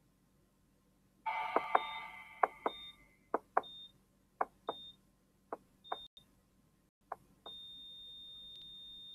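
Hospital heart-monitor sound effect: pairs of heartbeat thumps, each followed by a short high beep, coming slower and fainter, then the beeps give way near the end to one long unbroken flatline tone, the sign that the heart has stopped.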